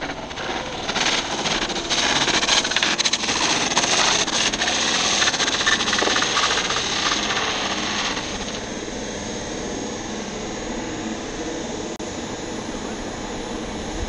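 Model turbine jet landing on an asphalt runway with a failed right main gear: a loud, dense rattling clatter of the airframe on the ground for about eight seconds, then easing into a steadier rolling noise. A high steady turbine whine runs under it.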